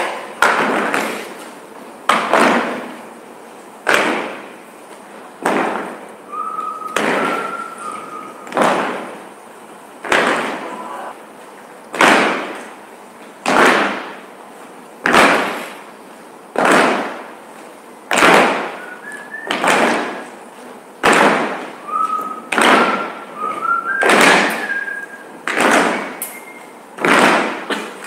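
A steady pulse of sharp slam-like hits, about one every one and a half seconds, each ringing out for about a second, with a few short high squeaks between them.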